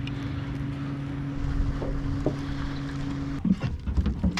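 A boat motor running with a steady hum that breaks off abruptly about three and a half seconds in, followed by a few short knocks and clatters.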